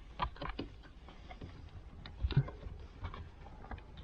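Scattered light clicks and knocks of hand tools tightening the screws of a steering wheel assembly, with a louder knock about a quarter of a second in and a dull thump a little past two seconds.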